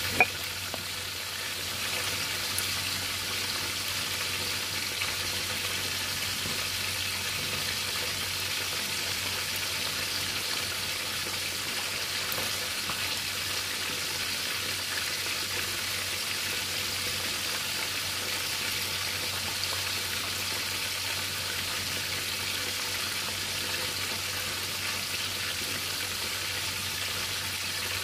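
A whole tilapia frying in hot oil in a pan: a steady sizzle, with one sharp click right at the start.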